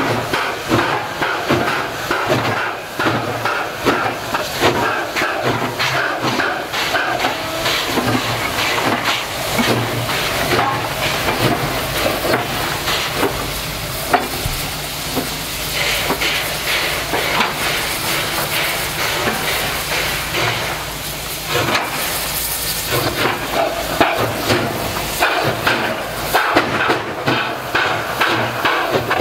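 SY class 2-8-2 steam locomotive labouring on a grade with a heavy loaded coal train: a fast run of exhaust chuffs over hissing steam, the sound of a locomotive struggling for grip with its driving wheels slipping. Past the middle the beats give way for a few seconds to a steadier hiss of steam, then return.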